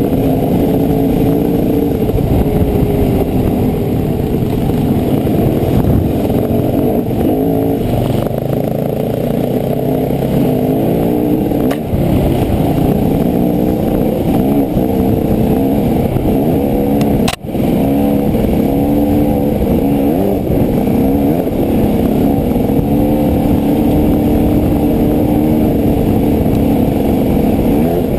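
Dirt bike engine running hard at trail speed, heard from the rider's helmet, its revs rising and falling with the throttle. The sound drops out briefly twice, once sharply about two-thirds of the way through.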